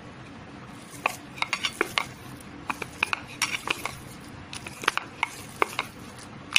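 A hand kneading chena on a steel plate: irregular sharp clicks and taps against the metal, with soft rubbing between them, starting about a second in.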